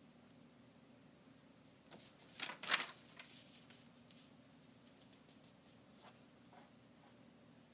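A paper sewing pattern and pinned cotton fabric being turned and slid across a cutting mat: a short rustling burst about two seconds in, then a few faint taps of handling, over a low steady hum.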